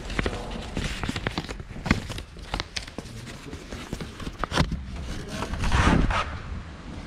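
Footsteps with scattered clicks and knocks, like handling noise from a hand-held camera, over a low rumble of station ambience.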